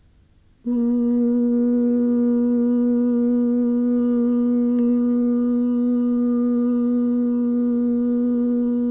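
A woman's voice intoning a long, steady 'uu' vowel on one held pitch, starting just under a second in after a moment of near quiet. It is the 'UU' vocalization of a breathing-and-hand-gesture practice, sounded on the out-breath after an inhale.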